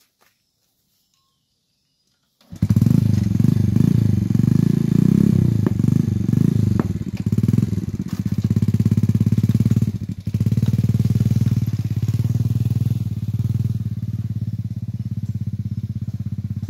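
Small motorcycle engine starting abruptly about two and a half seconds in, then running loud with a rapid, even put-put, uneven for the first few seconds and steadier after.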